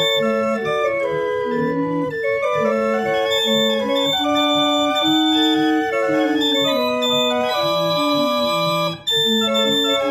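Hand-cranked small pipe organ with metal pipes playing a tune from a roller-organ cob: a melody over a lower part, several notes sounding together and changing steadily. The sound drops out briefly about nine seconds in.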